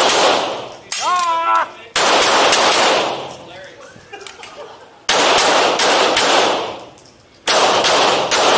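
Handgun fired in quick strings of several shots, with pauses of a couple of seconds between strings. Each string leaves a long echoing tail off the walls of an indoor range.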